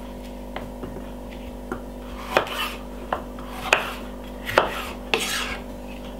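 Kitchen knife chopping a yellow bell pepper on a wooden chopping board: about eight separate knocks of the blade against the board, at an uneven pace.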